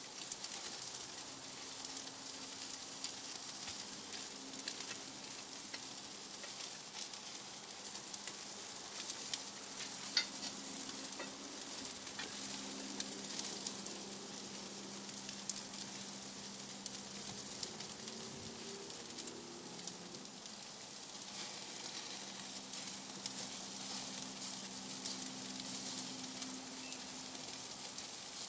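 Ribeye steak sizzling on a grill over oak embers: a steady sizzle with frequent small crackles and pops.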